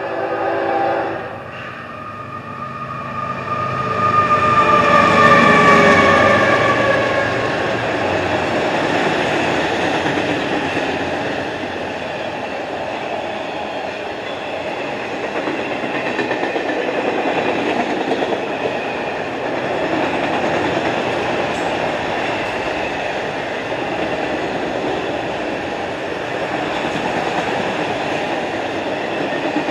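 Freight train passing. A horn chord sounds and cuts off about a second in. The GE diesel locomotives go by loudest a few seconds later, and then a long string of autorack cars rolls past with steady wheel-on-rail noise.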